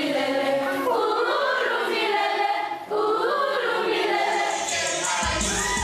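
A group of young voices singing together in chorus, with a short break about three seconds in.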